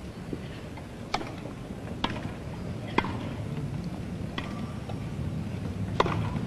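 Tennis ball struck back and forth in a rally: about five sharp pops, roughly a second apart, over the low hum of an old broadcast recording.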